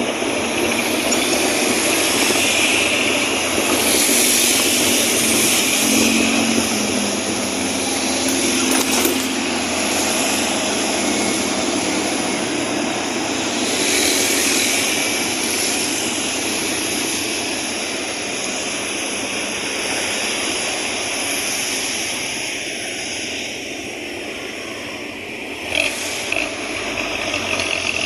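Aneka Jaya intercity bus with a very loud growling ('ngorok') exhaust running steadily on the move, a constant rush of engine, exhaust and road noise. One short sharp noise near the end.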